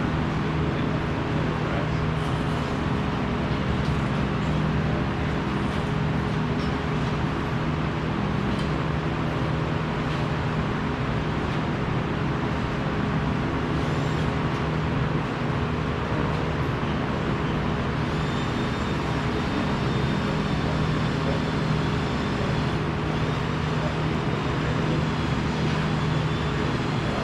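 Steady machine hum over continuous background noise, with no breaks.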